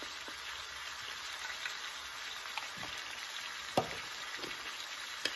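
Ground beef and pork sausage with sautéed vegetables sizzling steadily in a frying pan, with one sharp tap about two-thirds of the way in.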